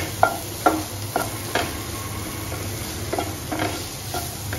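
A spatula stirring and scraping sweet corn and onion around a nonstick frying pan in about seven short, separate strokes, over the sizzle of frying. Refined flour has just gone into the pan, and it is being stirred in quickly so it doesn't form lumps.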